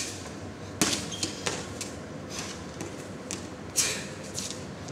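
Wooden staff swung through a Southern staff (nangun) form: about half a dozen short, sharp swishes spread out, the strongest about a second in and near the end, with light taps of feet and staff on the mats.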